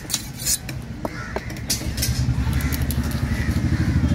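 A few sharp knocks of a large knife against a wooden chopping block as a fish head is cut, in the first two seconds. From about two seconds in, a motor engine runs close by, a low pulsing rumble that grows louder and drowns out the rest.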